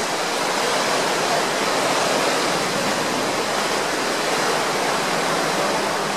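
Steady rushing noise of a speedboat under way, water and air streaming past the boat.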